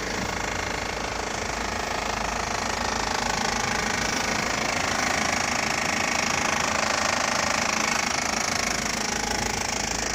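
VW Passat 1.8T (AWT) turbo four-cylinder engine idling hot with a rapid, steady rattling knock. The knock comes only at idle and clears with revs; the owner puts it down to the hydraulic camshaft chain tensioner.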